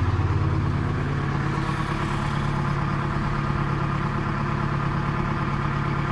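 Trojan wheel loader's engine running steadily at a low speed, its pitch stepping up slightly right at the start.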